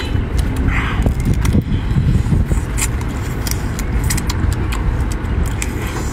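Wind buffeting the microphone as a steady low rumble, with sharp clicks and crackles of crab shell being cracked and chewed scattered through it.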